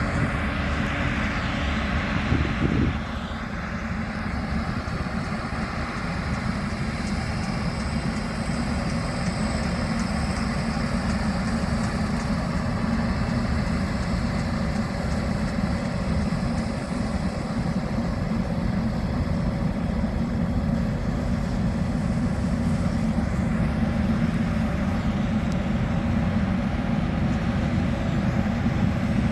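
International combine harvester running steadily while harvesting wheat: a low, constant engine and machinery drone. A brighter rushing noise over the first few seconds cuts off abruptly about three seconds in.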